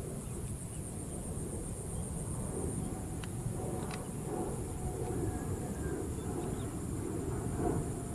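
Sukhoi Su-30 fighter jet's engines on landing approach: a steady low rumble, with a faint whine. Insects chirr steadily and high-pitched throughout.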